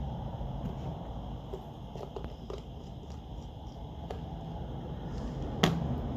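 Faint taps and clicks of small tools and parts during smartphone reassembly, with one sharp click near the end.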